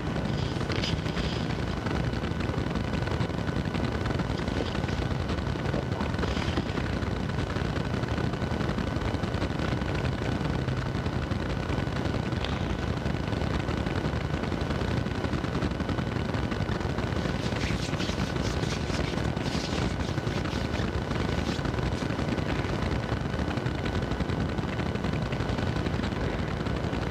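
Steady crackling static noise with a faint steady high tone underneath, unchanging throughout.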